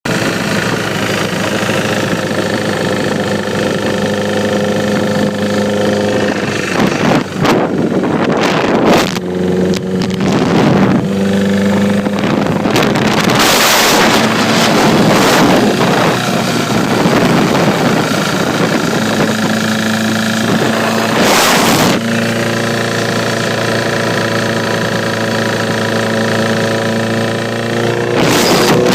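Honda CBR Repsol-edition sport bike's inline-four engine running steadily, its pitch shifting a little about a quarter of the way in and again later, with a few short gusts of rushing noise. The owner is checking the engine for a ticking noise.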